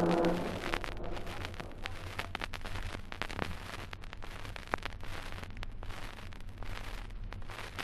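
Crackle and scattered clicks of surface noise from a 78 rpm acetate disc, over a steady low hum. A ringing tone dies away in the first half-second.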